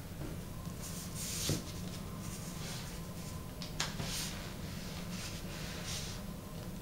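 Origami paper being folded and tucked by hand: soft paper rustles with two sharp crease clicks, the first about a second and a half in and the second near four seconds. A low steady hum runs underneath.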